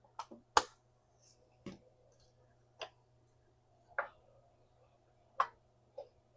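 Kitchen utensils clicking and tapping: about eight short, sharp clicks at irregular intervals, the loudest about half a second in and just after five seconds.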